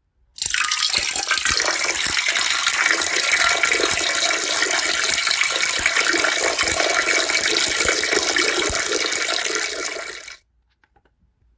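Peeing sound effect: a steady stream of liquid splashing into toilet water. It starts abruptly, runs for about ten seconds, then tails off and stops.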